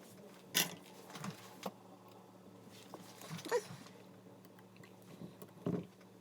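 A few sharp clicks and knocks, about five spread over six seconds, as of small parts and tools being handled, over a low steady hum.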